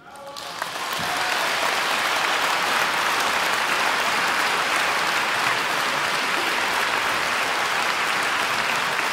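Concert audience applauding, building up over about the first second and then steady.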